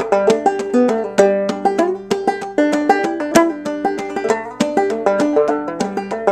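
An A-scale banjo being picked: a quick, continuous run of bright plucked notes that ring briefly, several notes a second.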